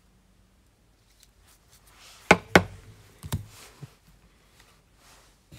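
Two sharp taps close together about two seconds in, then a few fainter taps, as baseball cards are handled on a cloth-covered table.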